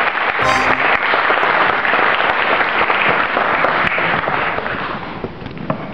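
Audience applauding, a dense patter of many hands that fades out near the end. A short musical note sounds just at the start.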